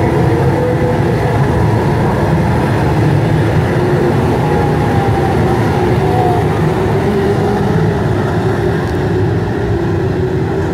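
A pack of TQ midget race cars running together around a speedway oval: a loud, continuous blend of many engines, their pitches wavering as cars pass, easing off a little near the end.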